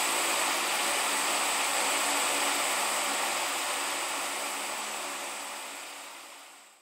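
Steady rushing noise like running water, with a faint high-pitched whine, fading out over the last few seconds.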